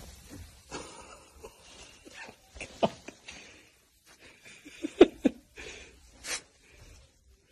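A dog bounding through deep snow, with soft scattered crunching and plowing of the snow and a few short vocal sounds from the dog. The loudest two come in quick succession about five seconds in.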